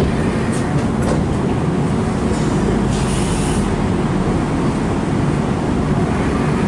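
Interior noise aboard a Hess Swisstrolley 3 trolleybus: a steady low rumble from the running bus, with a brief high hiss about three seconds in.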